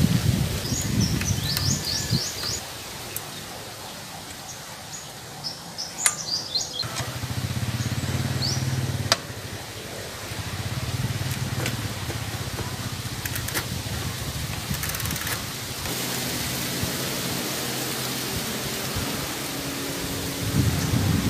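Outdoor background with birds chirping in short bursts near the start and again about six seconds in, and a low motor-vehicle hum that comes in about a third of the way through and stays steady. A few sharp clicks stand out over it.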